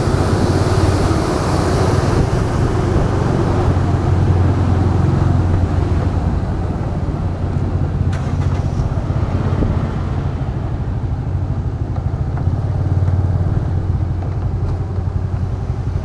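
Small motor scooter engine running at low speed while riding slowly, a steady low drone, with an extra hiss of air in the first few seconds that fades away.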